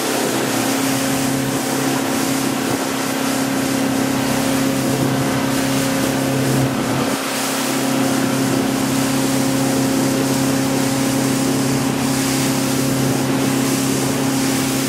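Motorboat engine running at a steady speed, a constant drone over the rush of the wake and wind.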